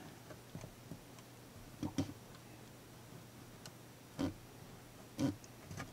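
A few faint clicks and ticks while soldering a rail joiner on N scale track. Three of them are a little louder than the rest, spaced a second or two apart. A low steady hum runs underneath.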